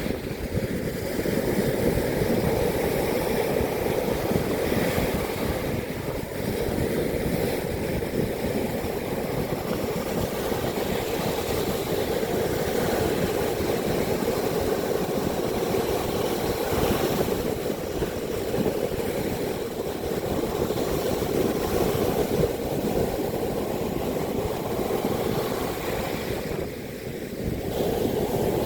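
Heavy surf rushing steadily, stirred up by a typhoon, with wind buffeting the microphone.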